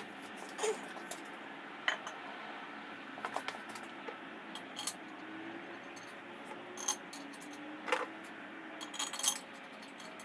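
Light metallic clinks and taps of engine parts and hand tools being handled during an engine rebuild, about eight separate knocks scattered through the stretch over a faint steady background hum.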